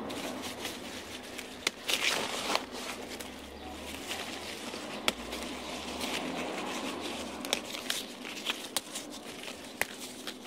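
Grapevine leaves being picked by hand and pushed into a plastic bag. Scattered sharp snaps of stems breaking, a cluster of them about two seconds in, over leaf rustling and crinkling of the bag.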